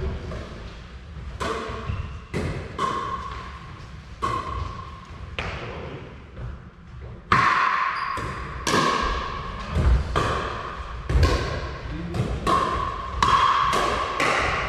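Pickleball rally: sharp pops of paddles striking the hollow plastic ball, echoing in a large hall. About a dozen hits, with a pause of a couple of seconds near the middle before the exchanges come quicker.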